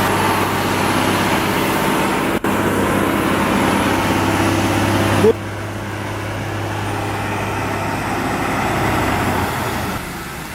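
Heavy truck engine running steadily with a low hum. About halfway through, the sound cuts abruptly to a quieter engine sound, with a brief squeal at the change.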